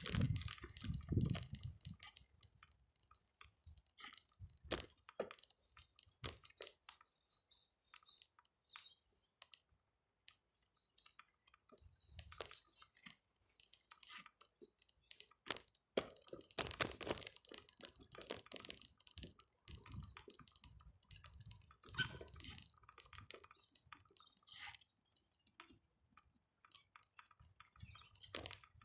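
Bicycle rattling and clicking irregularly as it rolls over bumpy grass, in scattered bursts with quieter gaps between.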